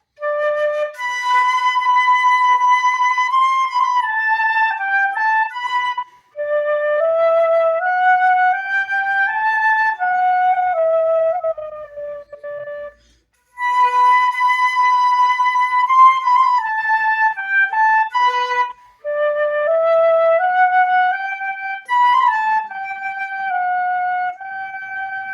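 Silver-finish Jean Baptiste transverse flute played solo: a melody of held notes and stepwise runs in four phrases with short breath pauses between them, the last phrase ending on a long held note.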